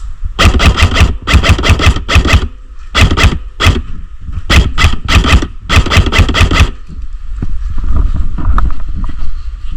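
Airsoft gun firing: several quick bursts of sharp cracks, about six a second, stopping about two-thirds of the way through, over a low rumble of wind on the microphone.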